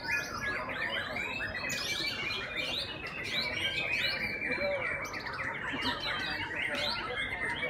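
Many white-rumped shamas singing at once from hanging contest cages: a dense, unbroken tangle of overlapping whistles, trills and chirps, with now and then a long held whistle among them.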